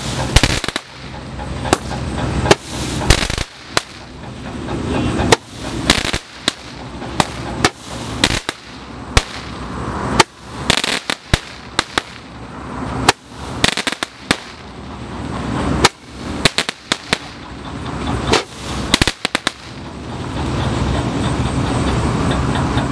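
Large Roman candles firing shot after shot, each star launched with a sharp pop. Crackling bursts follow in the air, with a steady rushing noise near the end.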